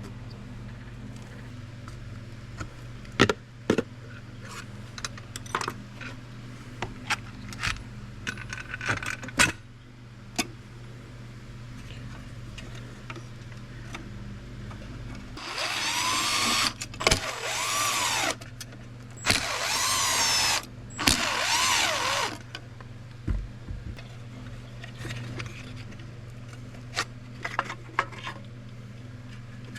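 Small electric screwdriver running in three short bursts, its motor whine rising and falling as it backs screws out of a gauge cluster housing. Before that, scattered clicks and taps of small parts being handled, over a steady low hum.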